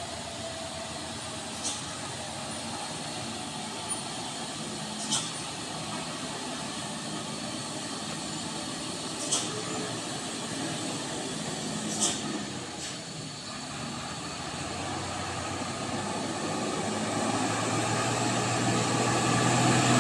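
Mitsubishi Fuso truck's diesel engine running as it climbs, a steady hum that grows louder over the last several seconds as the truck draws near. A handful of short sharp clicks sound in the first dozen seconds.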